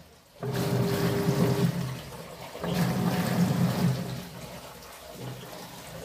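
Sanyo ASW-A76HT top-loading washing machine agitating: its pulsator motor hums with water swishing in the tub, in two strokes of about a second and a half each, a second apart. It is washing with too little water, the fault of starting the wash before the tub has filled.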